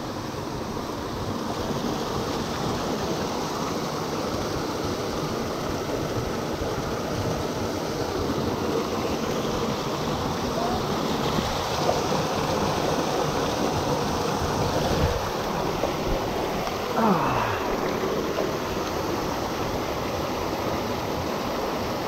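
A small waterfall rushing steadily over rocks close by, water pouring down into a rock pool.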